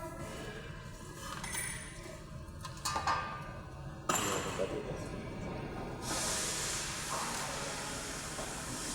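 A few light clinks and a knock, then a steady high hiss that starts suddenly about six seconds in.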